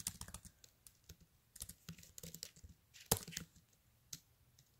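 Fingers tapping and handling a handheld device to start a song: a scatter of light, irregular clicks and taps, with a sharper tap about three seconds in.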